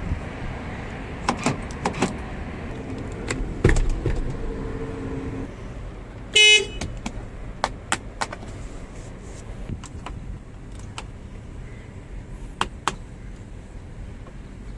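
A short vehicle horn toot about halfway through, the loudest sound, over steady vehicle noise with scattered sharp clicks and knocks.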